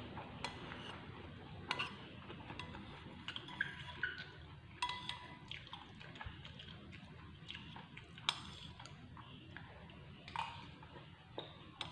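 Metal spoon scraping and clinking against a ceramic plate while scooping up rice, a scatter of irregular sharp clicks, with wet chewing sounds in between.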